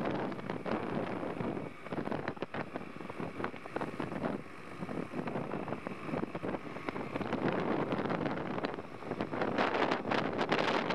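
Wind buffeting the microphone on an LE Velocette motorcycle under way at speed, over the steady run of its water-cooled flat-twin engine and road noise. The buffeting gets louder near the end.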